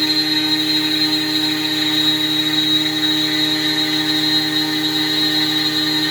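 CNC router cutting, its spindle running with a steady whine that holds the same pitch throughout.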